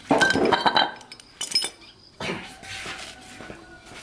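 Metal tools and engine parts clinking and clattering together, with a short rushing hiss a little past two seconds in.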